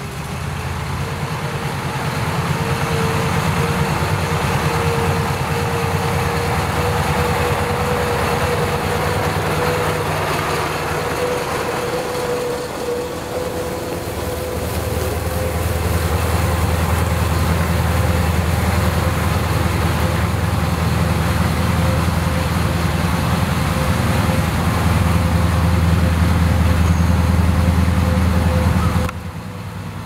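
Water tanker truck's diesel engine running as it drives slowly, with a steady low rumble, a thin steady whine above it, and a hiss of water spraying from its rear spray bar onto the gravel road. The sound drops away suddenly near the end.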